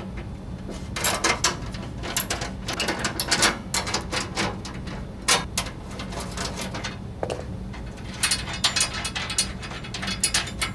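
Socket wrench ratchet clicking in quick runs of strokes with short pauses between, as the bolts holding a snow blower's scraper blade to the auger housing are loosened.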